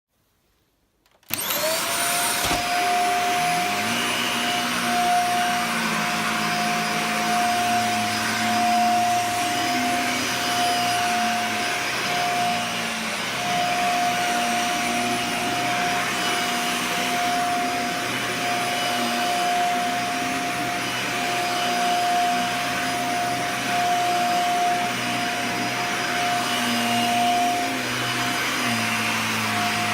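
Dyson Small Ball Multifloor upright vacuum cleaner switched on about a second in, then running steadily while vacuuming, with a high steady motor whine over a lower hum that wavers.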